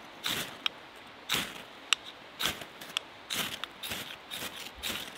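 Knife spine scraped hard down a ferrocerium rod, throwing sparks to light a tinder bundle. There are repeated rasping strikes, about one or two a second, with a few sharp clicks, as the tinder keeps failing to catch.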